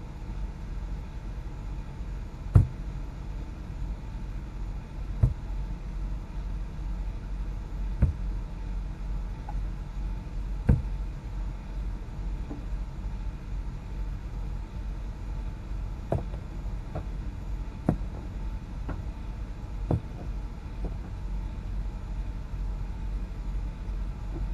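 Road noise inside a moving vehicle's cab: a steady low rumble with a sharp thump every few seconds, as the tyres go over joints or bumps in the road.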